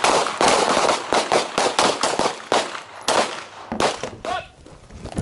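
Pistol gunfire from a line of shooters firing one-handed. Many sharp shots overlap at a ragged pace, several a second, each with a short echo, and they thin out in the last second or so.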